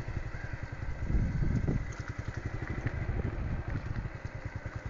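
Small motorcycle's engine running with a quick, even pulse as the bike rides along.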